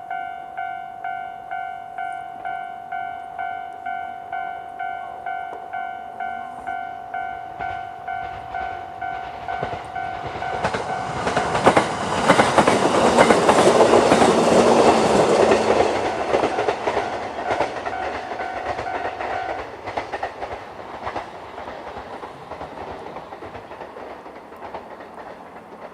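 Japanese level-crossing electronic alarm bell ringing in a steady two-tone pulse, about two strikes a second, while a JR E131-series electric train passes with rumble and wheel clickety-clack over the rail joints. The train sound swells to its loudest about halfway through. The alarm stops soon after, and the train sound fades away.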